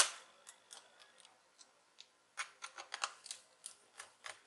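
Small clicks and ticks of a screwdriver and plastic parts as a laptop speaker is handled and fastened back into the chassis. There is one sharp click at the start, then a run of lighter, irregular clicks from about two and a half seconds in.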